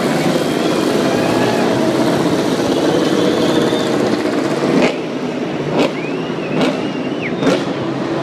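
Many MotoGP race bikes' engines running together on the starting grid, a loud steady idle with revving. In the second half come four short, sharp cracks just under a second apart.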